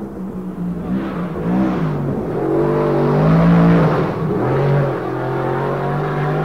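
Racing engine being revved: a few quick blips up and down, a longer climb and drop in pitch, then running steadily at a raised speed for the last second or so.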